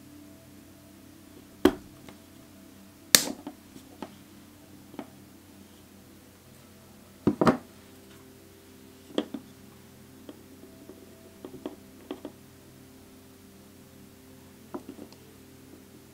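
Fused plastic bead pieces clicking and knocking against each other as they are handled and fitted together. A dozen or so short, sharp clicks come at irregular intervals over a faint steady hum, the loudest about three seconds in and a double click about seven seconds in.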